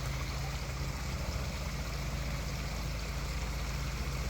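Pond waterfall running with a steady splash, and a low steady hum underneath.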